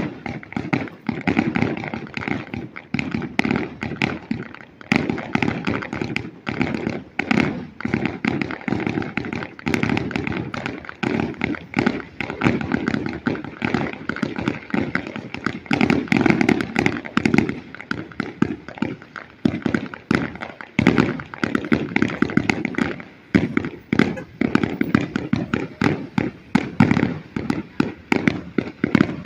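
Fireworks going off in a dense, continuous barrage of rapid bangs and crackling with no pause.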